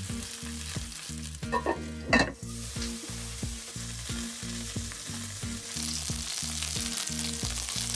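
Chicken thigh pieces sizzling in oil in a nonstick frying pan as they brown, with a spatula turning them. The sizzle grows stronger about three-quarters of the way through.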